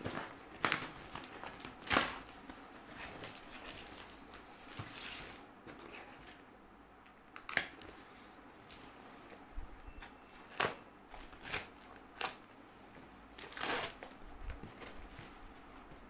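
A cardboard parcel being unwrapped and opened by hand: plastic wrapping crinkles and cardboard flaps and tape are pulled and torn, in a string of short, sharp scrapes and rustles.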